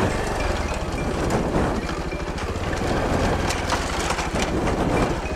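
Bajaj Pulsar 220F's single-cylinder engine running at low revs as the motorcycle rolls slowly over a bamboo-slat footbridge, with the loose bamboo clattering under the tyres. The bridge is weak enough that the rear tyre nearly breaks through the slats.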